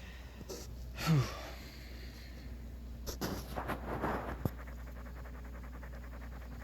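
A man's short vocal sound falling in pitch about a second in, then a few breathy exhalations and a single click, over a low steady hum.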